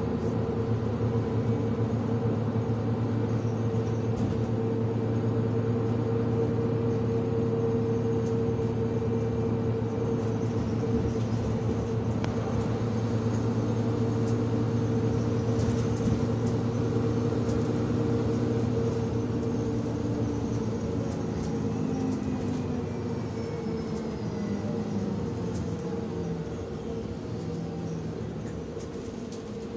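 Steady running hum of a public-transport vehicle heard from inside, several fixed tones holding for about twenty seconds. After that a few tones slide downward and the sound fades gradually, as the vehicle slows.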